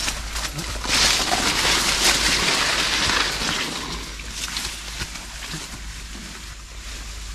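Leaves and stems of dense brush rustling and scraping against a mule and its rider as they push along an overgrown trail, with small crackles and snaps, loudest for a couple of seconds about a second in, then fading.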